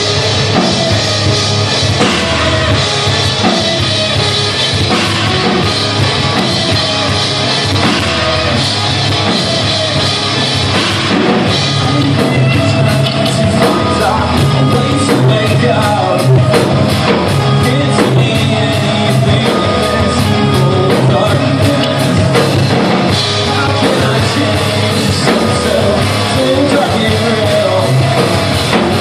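Rock band playing loud and unbroken, with a drum kit and sung, shouted vocals.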